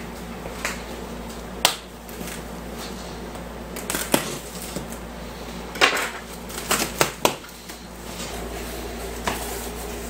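Cardboard shipping box being handled and opened, its taped seam worked loose: scattered sharp taps, knocks and scrapes of hands and cardboard, several close together a little past the middle.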